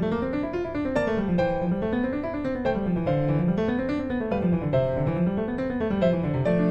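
Background piano music: rising and falling runs of notes in a steady repeating pattern.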